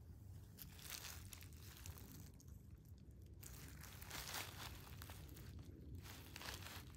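Three bouts of rustling, crunching scrapes in dry compost and garden debris, each lasting a second or two.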